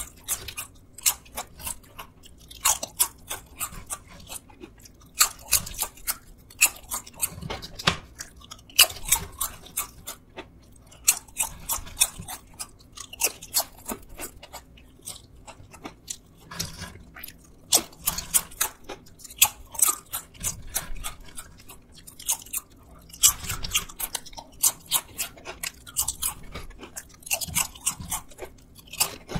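Crisp fried potato chips being bitten and chewed close to the microphone: bouts of sharp crackling crunches, a second or two each, with short pauses between mouthfuls.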